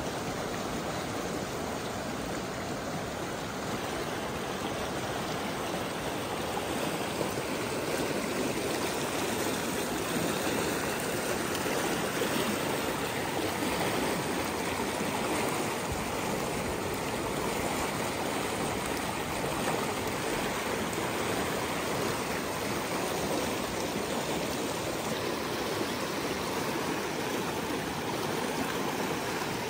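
Fast, shallow mountain river rushing and splashing over rocks and small rapids, a steady, unbroken rush of water.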